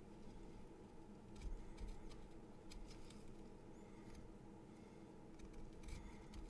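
A pencil being sharpened: faint, scattered light clicks and scrapes in small clusters, over a steady low hum.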